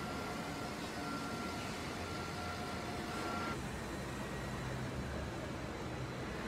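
Container-port machinery noise: a steady rumble of terminal tractors and quay-crane gear, with a high steady tone, broken a few times, that stops about three and a half seconds in.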